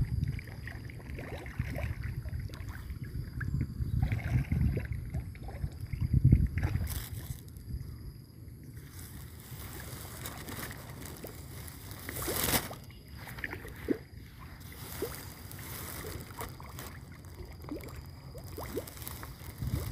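Wind noise on the microphone, a low rumble that is heavier in the first several seconds, with scattered light clicks and rustles and one sharper noise about twelve seconds in.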